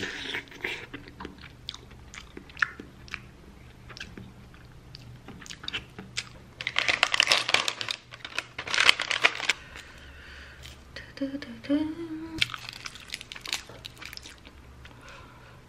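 Mealtime eating sounds: small spoon and bowl clicks and chewing, then about three seconds of loud crackling as a plastic packet of seasoned seaweed (gim) is handled and sheets are pulled out. About a second later comes a short hummed "mm" from the eater, followed by more crisp crackling of seaweed.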